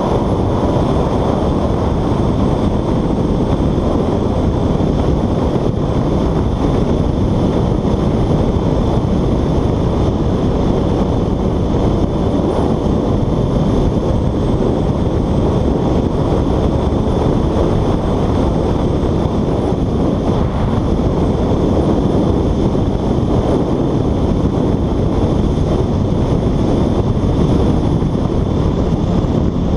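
Steady rush of wind over a helmet-mounted camera's microphone on a motorcycle moving at road speed, mixed with road noise and no clear engine note.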